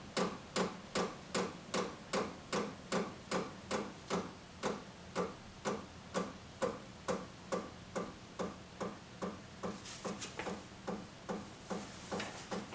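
Diesel heater's fuel dosing pump ticking in an even rhythm, just under three ticks a second, as it pulses fuel to the burner during startup. The heater's blower fan hums faintly and steadily underneath.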